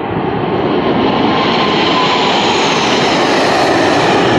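Blue Angels F/A-18 jets flying past on a practice display: a loud jet roar that builds over the first second and then holds, with a faint falling whine as they go by.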